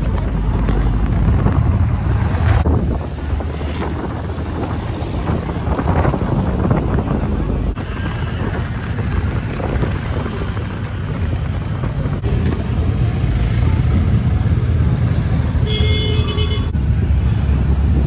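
Jeepney engine and road noise heard from the open-sided passenger cab while moving at speed: a steady low rumble with wind buffeting the microphone. A brief pitched tone sounds about two seconds before the end.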